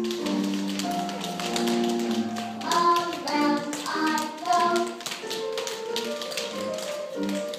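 Children's tap shoes tapping irregularly on a hard floor, many scattered clicks at once, over recorded music with a melody.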